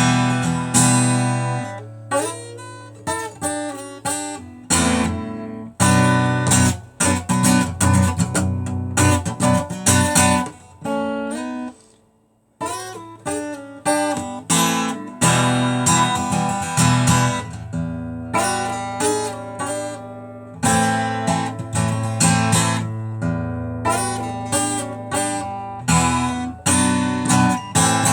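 Acoustic guitar played on its own, strummed and picked chords ringing out one after another, with a short break about eleven seconds in before the playing resumes.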